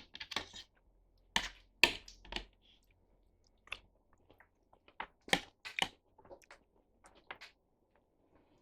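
Eating sounds: a scattered series of short clicks and clinks from a utensil against a dish, mixed with chewing.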